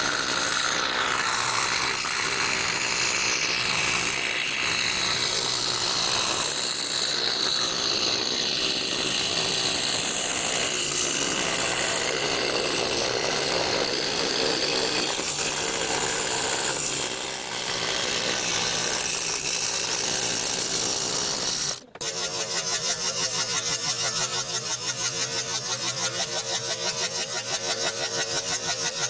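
Scroll saw running, its Pegas #4 spiral blade cutting through baltic birch plywood. About three-quarters of the way through, the sound breaks off abruptly and resumes as a fast, even pulsing.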